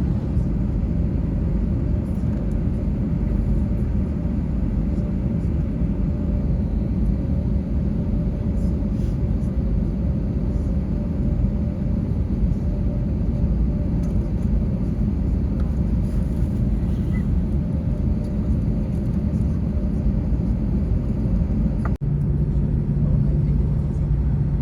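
Steady low rumble of an airliner's engines and airflow heard from inside the passenger cabin. Near the end it cuts abruptly to a steadier hum with a low droning tone.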